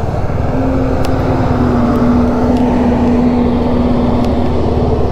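Motorcycle engine running steadily under a dense low rumble, with a steady hum that sits for most of the stretch and fades near the end.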